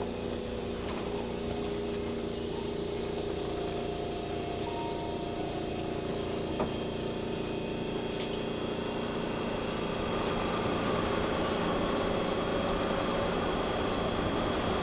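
Running sound inside a Keihan 3000 series electric train as it comes into a station: steady wheel and motor rumble with the whine of the traction motors. The sound grows louder about ten seconds in.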